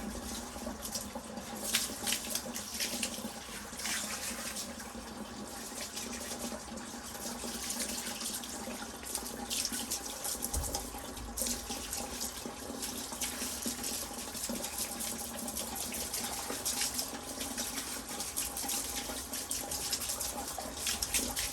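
Pressure washer jet spraying water onto sandstone paving slabs, a hissing spray that surges as the lance sweeps, with the machine's steady hum underneath.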